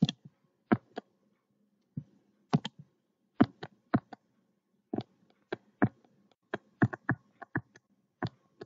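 Sharp clicks at an irregular pace, many in close pairs, from the input device used to hand-write numbers stroke by stroke on a computer whiteboard.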